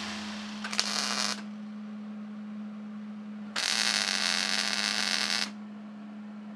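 MIG welder tack-welding a steel lever extension. A short burst of arc crackle comes about a second in, and a longer weld of about two seconds starts midway. Both sit over a steady low hum.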